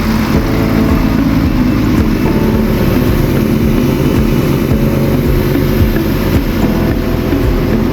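Scania truck diesel engine running steadily at idle, now that the failed fuel feed pump has been replaced.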